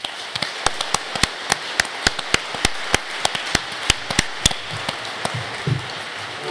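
Audience applauding: a steady patter of many hands, with louder single claps close by standing out about three times a second, thinning out near the end.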